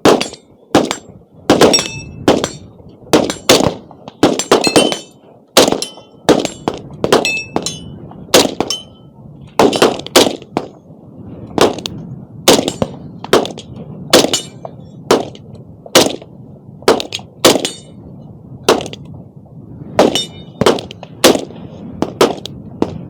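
Gunshots fired on a shooting range in a long irregular string, a bit more than one shot a second, some followed by a short high ping of bullets striking steel targets.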